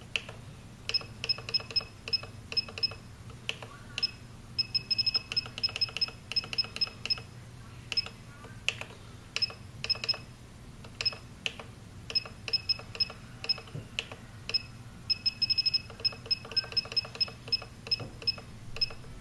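Key-press beeps from an RC transmitter running ER9X firmware as its buttons are pressed to enter a model name: short high beeps, some single and some in quick runs of several a second, with button clicks among them.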